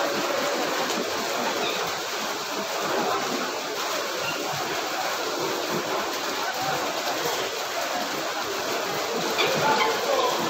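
Steady crowd din in a sports hall: many voices talking at once and blending into an even background noise, with no single sound standing out.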